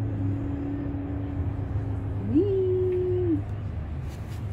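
A long held, voice-like hum at one pitch over a steady low drone. About two seconds in, the voice glides up to a higher note, holds it for about a second and drops away.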